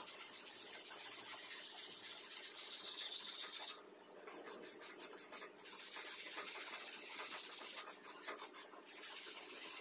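Radish being shredded by hand on a grater: a steady rasping scrape of quick strokes, which twice breaks into a run of short separate strokes, about four seconds in and again near the end.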